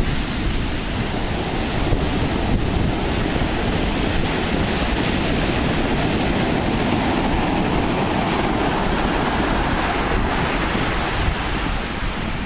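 Heavy storm surf from Hurricane Sandy breaking and washing up the beach, a continuous wash that swells near the middle, with wind rumbling on the microphone.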